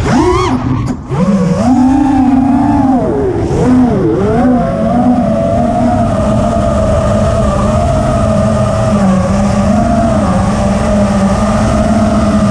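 Brushless motors and propellers of a 6S FPV freestyle quadcopter running, the pitch dipping sharply with throttle cuts about a second in and again near four seconds, then holding a steady hum.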